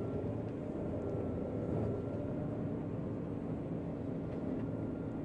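John Deere 9500 combine running steadily while harvesting soybeans, heard from inside the cab as a constant engine and machinery hum with a faint steady whine.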